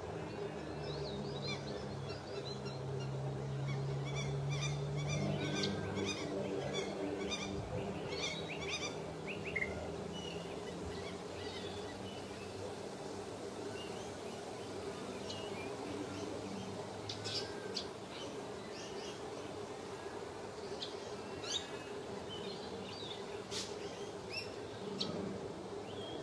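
Birds chirping in many short, high calls over a steady low hum.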